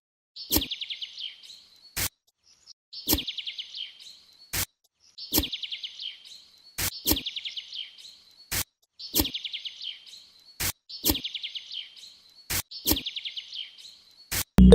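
A bird singing the same short, rapid, high trill over and over, about every one and a half to two seconds, with sharp clicks falling between the trills.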